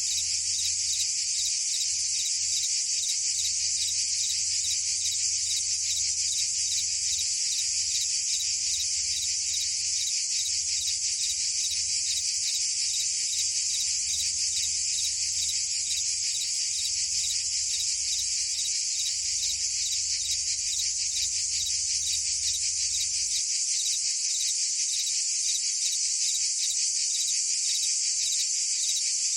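Dense, continuous chorus of cicadas and crickets: a steady, high-pitched buzzing trill made of very fast pulses. It keeps an even level with no breaks.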